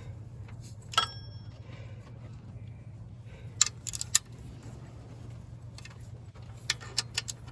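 Metal hand tools and parts clinking in three short groups, the first a single sharp clink that rings briefly, over a steady low hum.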